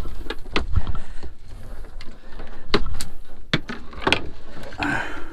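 Irregular sharp knocks and thuds on the deck of a small wooden boat as a freshly gaffed yellowspotted trevally and the gaff and rod are handled and knock against the boards.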